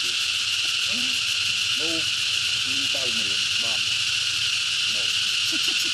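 Insects droning steadily in a high-pitched chorus, with faint short rising-and-falling calls underneath about once a second.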